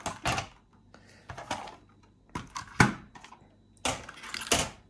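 A metal-framed mechanical keyboard and its cable being handled and moved, in four short bursts of rustling and clattering.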